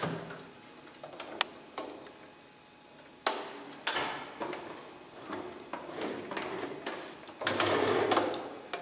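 Domestic electric sewing machine stitching piping onto a jacket sleeve in short starts and stops, with clicks between the runs. The longest and loudest run comes near the end.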